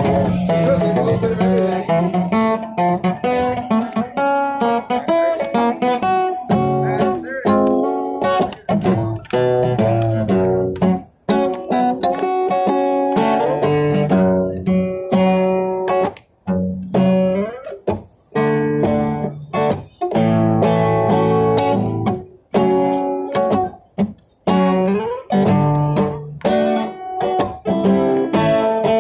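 Acoustic guitar playing a run of picked notes and chords, with a few brief pauses between phrases.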